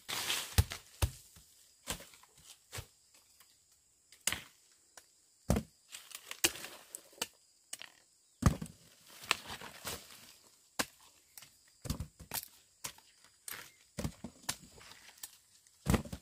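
An uneven series of sharp knocks, some with a dull thud under them, about one or two a second: a hand tool chopping or striking.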